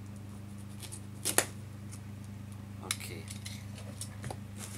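A few sharp clicks and knocks from a box cutter and a taped cardboard box being worked open. The loudest comes about a second and a half in and another near three seconds, over a steady low hum.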